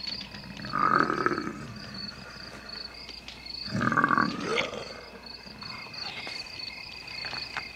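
The Hulk growling twice in gruff, wordless answer, about three seconds apart, over steadily chirping crickets.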